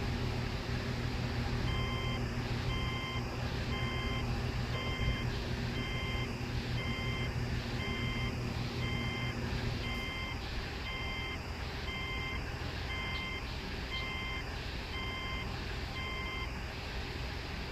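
A 2006 Subaru Tribeca's 3.0 L flat-six idling smoothly, with no misfire heard. An electronic beeper sounds about once a second, about fifteen times, starting about two seconds in and stopping shortly before the end. Part of the low hum drops away about halfway through.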